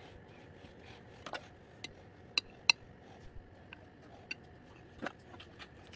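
Scattered light clicks and clinks of a metal utensil against a ceramic plate while food is plated. The two loudest, sharp ringing clinks come close together about two and a half seconds in.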